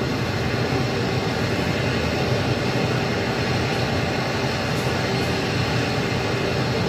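RS-25 liquid-hydrogen rocket engine firing steadily on a test stand: a constant, even roar of rushing noise with no change in level.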